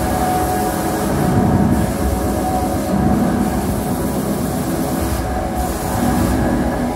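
Live electronic noise-ambient performance: a loud, dense noisy drone with a few held tones underneath, swelling every couple of seconds.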